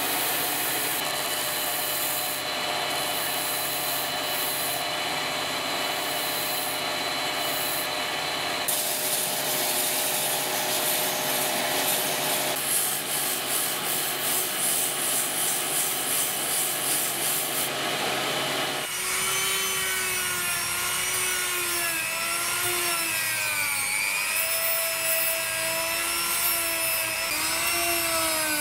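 Belt grinder sanding a wooden knife handle, a steady grinding rasp. About two-thirds of the way through it gives way to a small rotary tool with a sanding drum, whose motor pitch dips and rises as the drum bites into the wood, hollowing finger grooves.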